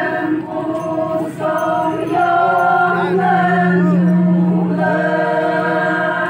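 A group of Konyak Naga women singing a folk chant together in long held notes, with their voices gliding and wavering in pitch around the middle.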